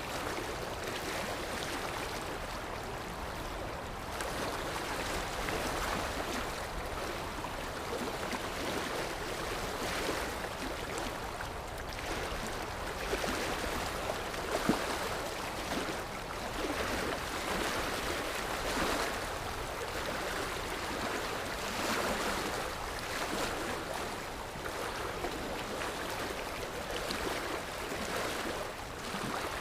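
Sea waves washing ashore: a steady rushing surf that swells and eases every few seconds, with one short louder peak about halfway through.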